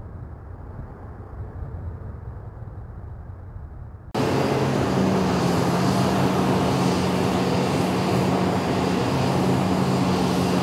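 Boeing C-17 Globemaster III turbofan jet engines: a low, distant rumble, then after an abrupt cut about four seconds in, loud, steady, close-up jet engine noise with a low hum underneath, ending abruptly.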